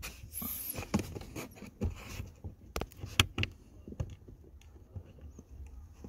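Irregular clicks, taps and light knocks of hands handling a car's plastic dashboard and instrument cluster housing around its screw brackets.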